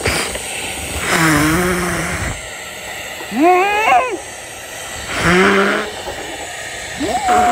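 Voice-acted muffled 'mmmph' cries with blowing air, in short bursts about every two seconds, one of them rising in pitch.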